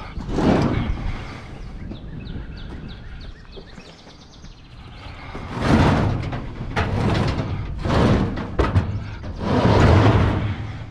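A heavy piece of furniture scraping and knocking as it is shoved across a truck bed, in several long pushes about a second each with sharp knocks between them.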